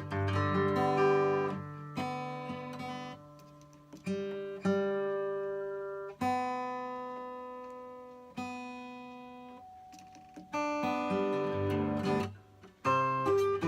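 Solo acoustic guitar playing an instrumental intro. Chords are strummed at first, then several single chords are struck and left to ring out and fade, and the strumming picks up again near the end.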